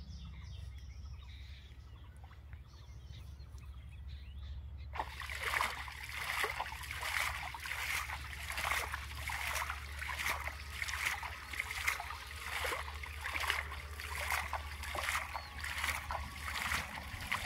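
A cast net being hauled in through shallow river water, churning and splashing at the surface a little more than once a second, starting about five seconds in.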